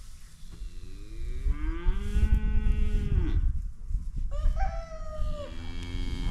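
Cattle mooing: one long moo about half a second in that rises, holds and falls away, then two overlapping moos from about four seconds in. A low rumble runs underneath.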